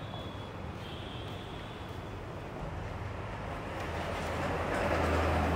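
Steady rumbling vehicle noise with a low hum, growing louder over the last couple of seconds.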